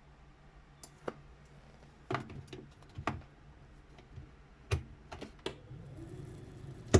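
Irregular mechanical clicks and clacks from a Triumph-Adler electric typewriter. About six seconds in, its electric motor starts with a steady low hum, and a loud clack comes just before the end.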